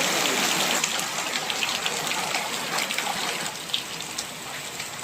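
Very heavy rain pouring down: a dense, steady hiss with many individual drops spattering through it, easing slightly towards the end.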